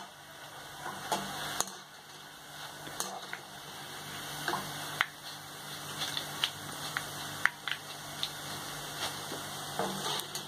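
Boondi frying in hot oil in a kadai: a steady sizzle with scattered sharp crackles, and the clinks and scrapes of a metal slotted spoon against the pan as the fried boondi is scooped out.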